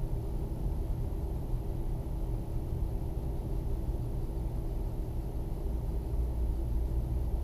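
Steady low rumble with a faint hum: room background noise. No separate scrubbing strokes stand out over it.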